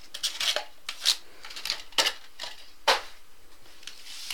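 Trading-card packs being handled: wrapper crinkling and rustling, broken by a few sharp clicks and taps, the strongest three about a second apart.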